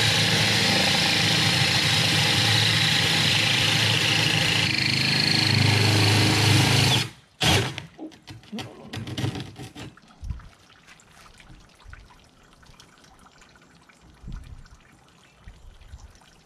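Cordless drill spinning a diamond hole saw through wet aquarium glass, the cut almost through. It runs steadily for about seven seconds, stops, then gives one short burst. After that, faint dribbling water.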